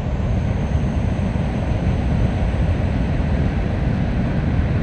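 Wind rumbling on the microphone: a steady, fluttering low rumble with no shots.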